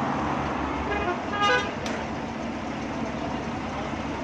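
A vehicle horn toots once, briefly, about a second and a half in. Underneath is a steady engine hum and road noise.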